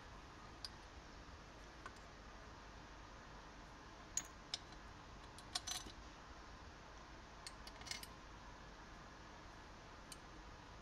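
Light metallic clicks and clinks of steel crankcase screws being set into the holes of a Voskhod motorcycle engine's joined crankcase halves. About ten faint taps come scattered through, with a small cluster near the middle.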